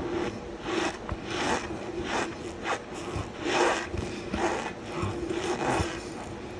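Fingers pressing and rubbing into loose cornstarch over gym chalk: a run of soft, crunchy rubbing strokes, about one every two-thirds of a second.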